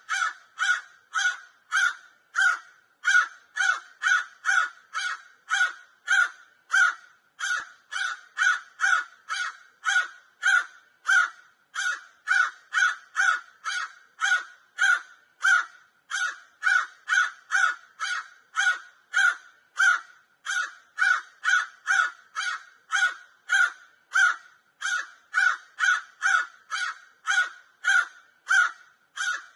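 Crow cawing: short harsh caws repeated evenly, about two a second, without a break.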